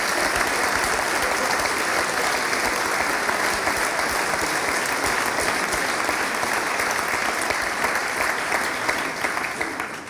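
Large audience applauding: dense, steady clapping that dies away near the end.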